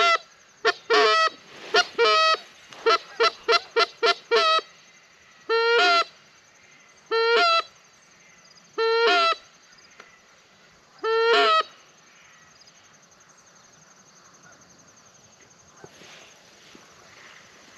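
Canada goose call blown by a hunter: a quick run of short clucks, then four longer honks about two seconds apart. Faint, steady cricket chirring underneath.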